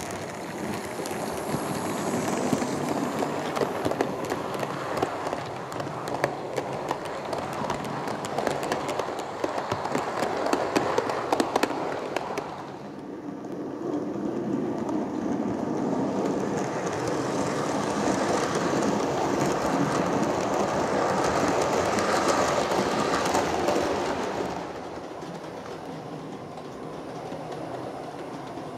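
Model railway locomotives running on layout track: a steady mechanical running sound with dense, rapid clicking of wheels over the rails. The clicking eases about twelve seconds in into a smoother, louder run, which drops quieter a few seconds before the end.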